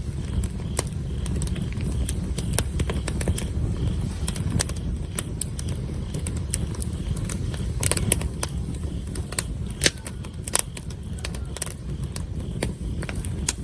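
Wood campfire crackling, with irregular sharp pops and snaps, the loudest about 8 and 10 seconds in, over a steady low rumble.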